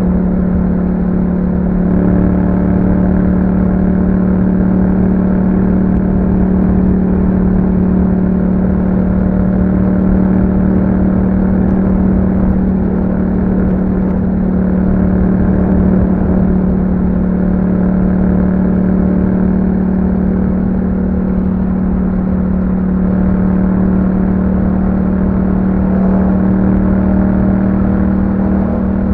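Yamaha MT-07's parallel-twin engine running through an Akrapovic exhaust, held at steady revs while riding.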